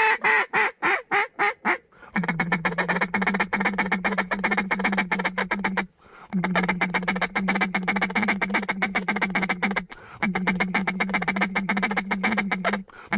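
Duck call blown by a hunter: a string of about eight loud quacks falling in pitch (a hail call), then three long runs of rapid feeding chatter over a steady low tone, with short breaks between them.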